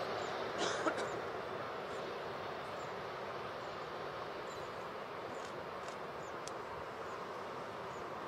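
Steady distant rush of a twin-engine jet airliner on final approach, with faint short high chirps scattered over it and a brief louder rustle about a second in.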